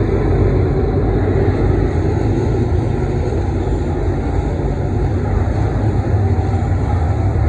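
Several IMCA Modified dirt-track race cars' V8 engines running at racing speed around the oval, blending into one loud, steady drone.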